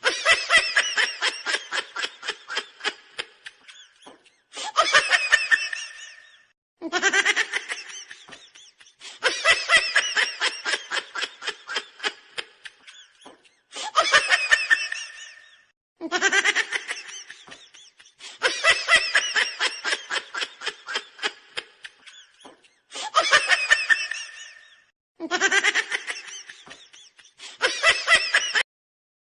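Human laughter in about ten bouts of one to three seconds each, every bout a fast run of 'ha-ha' pulses, with short gaps between them.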